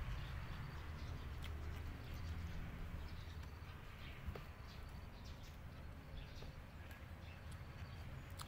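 Faint birds chirping here and there over a low steady rumble, with a single sharp click about four seconds in.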